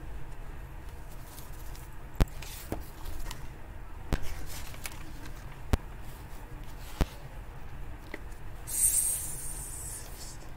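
Quiet handling of a paperback picture book: a few scattered sharp clicks and a brief rustle of paper about nine seconds in, over a low steady room hum.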